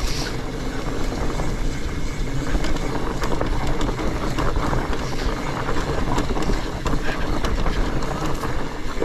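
Fat bike rolling down a damp dirt singletrack: a steady rumble from the wide tyres over the trail, broken by many small clattering knocks as the bike goes over roots and bumps, picked up by a camera on the rider's helmet.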